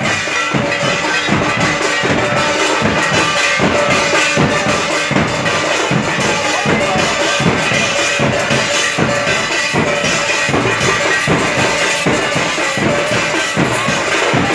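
Matua devotional drumming: large drums beaten in a fast, steady beat, with ringing metal cymbals over it.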